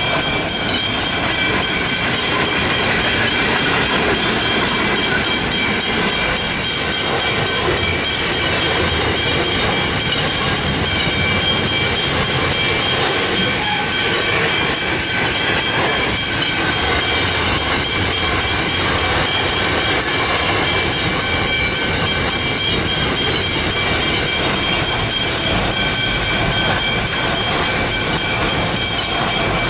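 A long train rolling slowly past, a steady, unbroken wash of wheel and wagon noise. Several high, steady ringing tones are held above it throughout.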